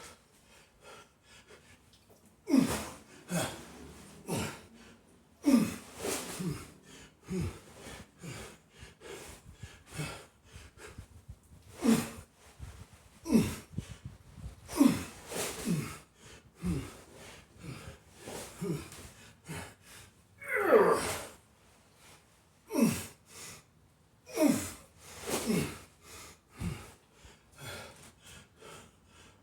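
A man's forceful, heavy breathing: hard gasps and grunted exhalations every one to two seconds, each dropping in pitch, with one loud, longer grunt about two-thirds of the way through. This is the strain of lifting and pressing a heavy sandbag.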